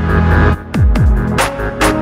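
Electronic background music with deep bass notes that slide downward, held synth tones and two sharp drum hits in the second half.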